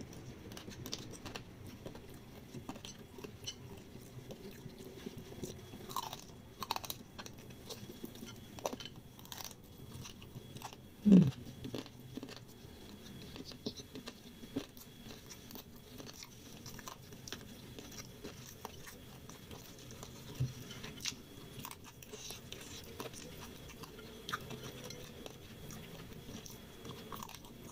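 Close-up eating sounds of fried instant noodles with fried egg: quiet chewing and wet mouth sounds with many small clicks and light crunches. One brief louder low sound about eleven seconds in.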